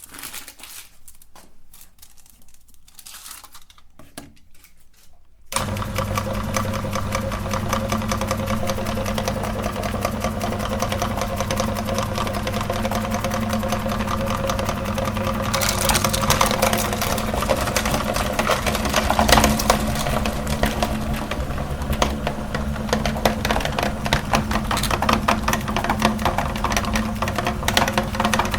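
Electric meat grinder switched on about five seconds in, its motor running with a steady hum; from about halfway a rougher, louder grinding joins as a chocolate bar goes through it. Before it starts, only faint handling sounds.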